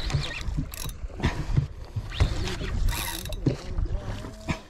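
Shimano Stella 14000 spinning reel cranked under the load of a hooked tuna, its gears and handle giving uneven mechanical clicks.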